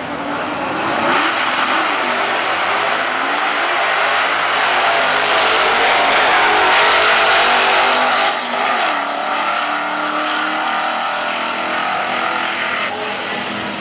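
Two super stock drag cars' V8 engines launching at full throttle and racing side by side down the drag strip. The engines are loudest a few seconds in as the cars pass, then drop off sharply and fade as they run away downtrack, with the pitch rising as they shift.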